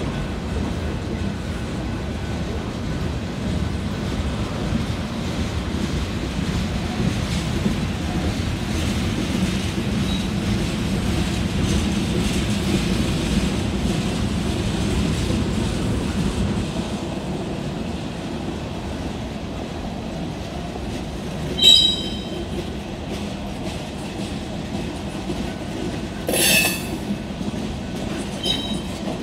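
Freight cars of a slow-moving BNSF manifest train rolling past with a steady rumble. Short, high wheel squeals cut in three times in the last third.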